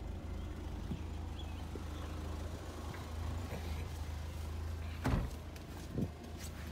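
Toyota 3S-GTE turbocharged four-cylinder engine idling steadily, keeping itself running on its alternator. Two brief louder sounds come near the end.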